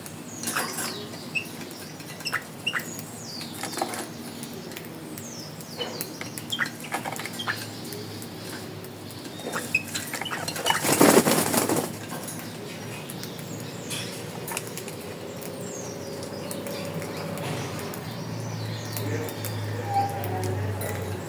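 Birds giving short chirps and clicks, scattered irregularly, with a loud rustling burst of about a second halfway through, and a low steady hum coming in near the end.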